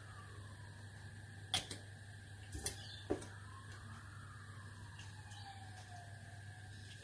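Three sharp clicks of small plastic model-kit parts being handled and set on the bench, over a steady low hum. A faint tone slowly rises and falls in pitch in the background.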